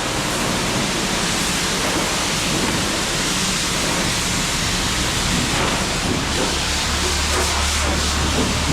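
High-pressure car-wash wand spraying water into a john boat: a loud, steady hiss of spray, with a low hum joining in about halfway through.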